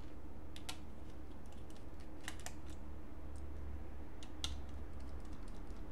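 A few small, sharp clicks and taps of hand tools on an opened laptop's screws and parts during disassembly, over a low steady hum.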